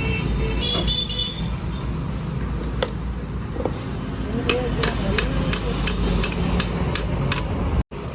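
Steady low rumble of motor traffic, with a quick run of about a dozen sharp taps, about three or four a second, in the second half. The sound cuts out for an instant near the end.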